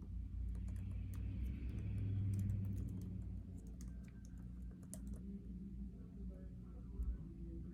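Scattered light clicks and taps at an irregular pace, over a steady low hum.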